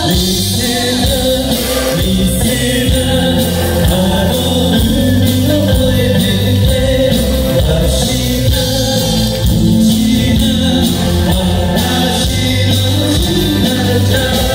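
Live band music with singing, played loud through PA speakers.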